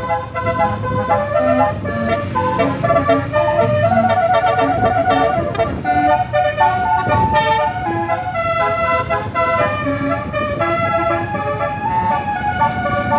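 A bus's multi-tone Basuri "telolet" horn plays a melody of short, quick-changing notes, some of them trilled, over a low engine rumble.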